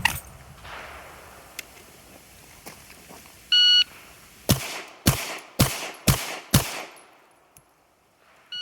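A shot timer beeps, then a pistol fires five quick shots about half a second apart, starting about half a second after the beep: the 5x5 drill shot from the ready position. A second short timer beep comes at the very end.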